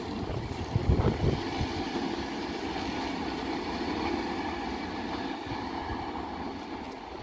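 Indian Railways EMU local train running away down the line, its wheels on the rails a steady rumble that slowly fades. There are a couple of low thumps about a second in.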